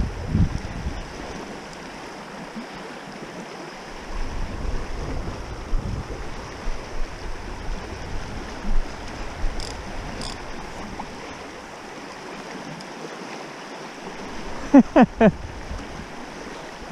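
Shallow river riffle rushing steadily over stones, with wind buffeting the microphone in low gusts at times. About fifteen seconds in come four short, loud pitched squeaks in quick succession.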